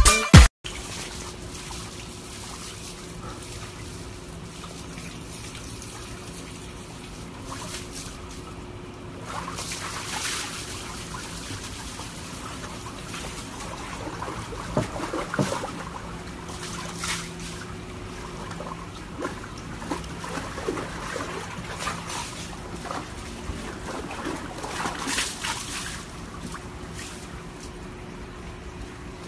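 Water sloshing and trickling in a plastic tub as a husky shifts about in it. Several louder, irregular splashes come in the second half.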